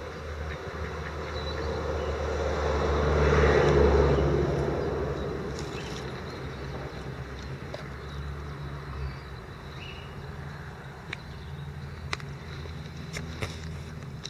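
A motor vehicle passing by, growing to its loudest about four seconds in and then fading away, over a steady low hum. A few light clicks come in the later part.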